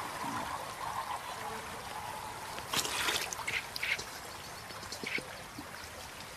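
Steady trickling water with a few short animal calls about halfway through.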